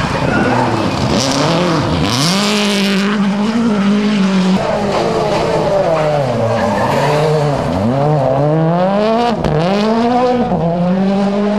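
Rally cars driven flat out, a Subaru Impreza and then a Ford Fiesta: their engines rev high and drop sharply several times as the drivers change gear and lift for the corner. Tyres scrabble and slide on loose gravel, with a burst of hiss a couple of seconds in and a few sharp pops near the end.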